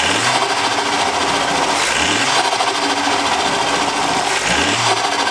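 2007 Ford Focus XR5's turbocharged 2.5-litre five-cylinder engine blipped three times, the revs rising each time, with the turbo fluttering as the throttle closes. It still has the factory intake joiner, whose internal baffles quieten the flutter.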